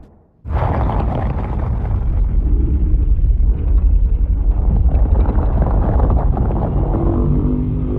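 Giant-lizard monster roar sound effect: a deep, rough rumbling growl starting after a brief gap, with a pitched roar tone rising out of it near the end.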